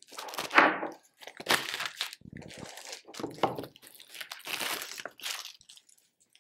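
A product box being opened by hand, its packaging rustling and crinkling in several bursts over about five seconds.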